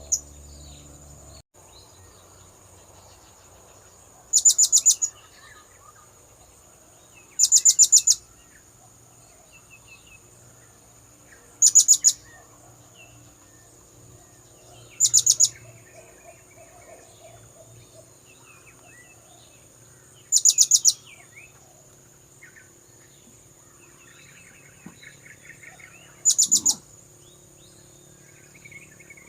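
Blue-crowned hanging parrot (serindit) calling: six short bursts of rapid, very high-pitched notes, spaced three to six seconds apart.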